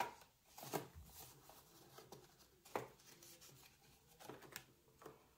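Faint rustling of paper banknotes and cash envelopes being handled, with a few brief soft taps and rustles spread through the quiet.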